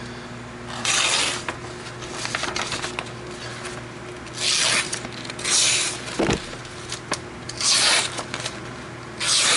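Freshly sharpened knife blade drawn through a sheet of paper in five short hissing strokes, a cutting test to find where the edge still does not cut cleanly.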